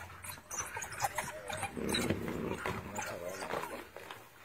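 Wild animals calling at a kill: a run of short, pitched yelps and squeals that bend up and down in pitch, loudest about halfway through and fading near the end.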